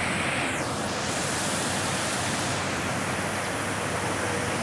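Steady rush of a river in flood, swollen by heavy rain, its fast water making an even roaring hiss.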